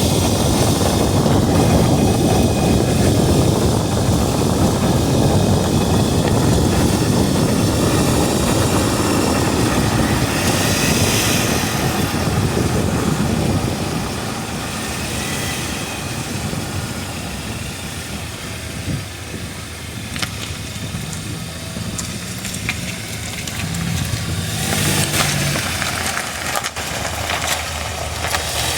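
A car driving on the road: a steady rumble of road and tyre noise that eases off about halfway through, followed by quieter running with a few sharp knocks.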